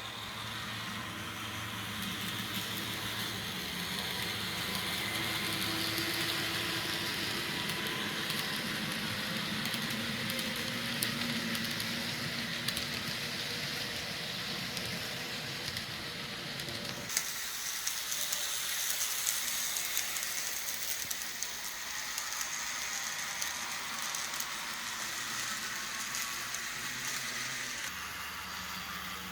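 Bachmann Spectrum N scale diesel model locomotives running on track: a steady electric motor whine with the hiss of small wheels on rail and scattered light clicks. The sound shifts about halfway through as the train moves on.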